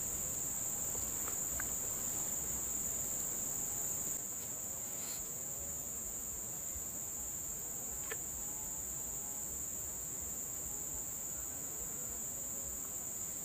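Steady high-pitched drone of an insect chorus, with a single faint tick about eight seconds in.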